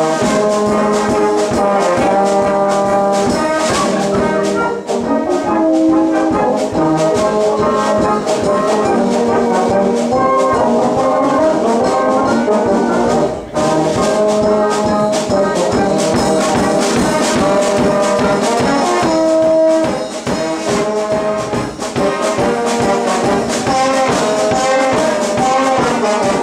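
Amateur wind band of tuba, trombones, trumpets, clarinets, flutes and drum kit playing a piece loudly, with a steady beat and a brief dip about halfway through.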